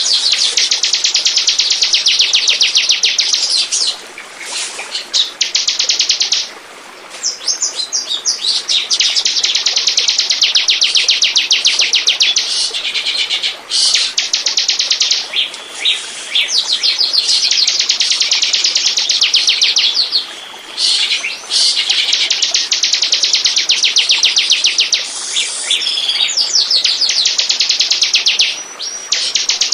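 Bar-winged prinia (ciblek) song: long, very rapid high trills of repeated chirps, broken by short pauses every few seconds.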